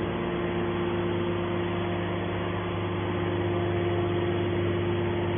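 Hydraulic can baler's motor and pump running with a steady hum, holding one even pitch throughout.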